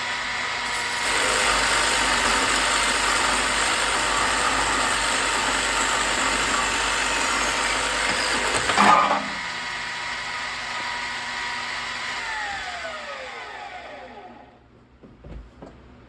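Metal lathe running with a steady motor whine while cutting a subframe bushing, a harsh cutting noise over the whine. The cut ends with a sharp noise about nine seconds in. About three seconds later the motor is switched off and winds down, its pitch falling away, followed by a few small knocks.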